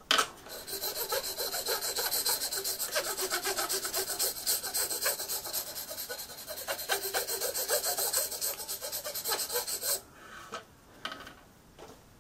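A hand file worked in rapid, even back-and-forth strokes across a steel knife blank held in a filing jig, cutting the edge bevel. The filing stops about ten seconds in, followed by a couple of light knocks.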